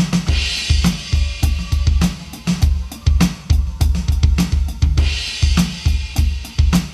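Electronic drum kit sounds triggered by drumsticks hitting Bibles fitted with piezo triggers. It plays a steady beat of kick drum, snare and hi-hat, with cymbal crashes shortly after the start and again about five seconds in.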